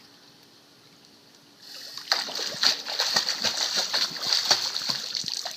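Pool water splashing: a dense run of quick splashes and spatters starts about two seconds in and stops shortly before the end.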